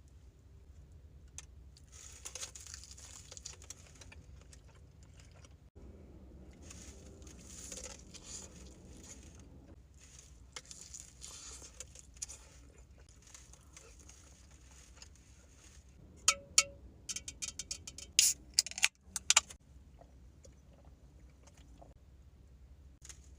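Close-miked eating of birria tacos: soft chewing and wet mouth sounds, with a run of loud, sharp crunches about two-thirds of the way in.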